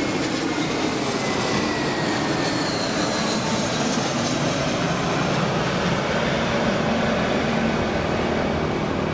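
Jet engines of an Airbus airliner at taxi power as it taxis close past: a steady rumble and hiss with a faint whine that slides slowly down in pitch.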